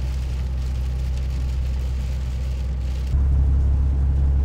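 Road noise inside a vehicle's cabin on a rain-wet highway: a steady low drone of engine and tyres with a hiss over it. About three seconds in it switches abruptly to a louder, deeper drone with the hiss mostly gone.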